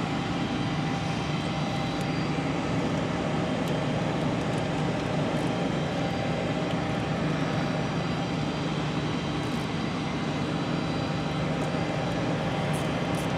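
Steady background drone of machinery in an aircraft maintenance hangar, a constant hum with no breaks. A few faint clicks come near the end.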